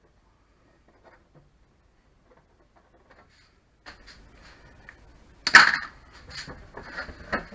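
A few faint ticks of a pen marking the plastic housing of a Tacx Flux smart trainer. From about four seconds in come rustling and light knocks as hands take hold of the housing, with one sharp clack about five and a half seconds in.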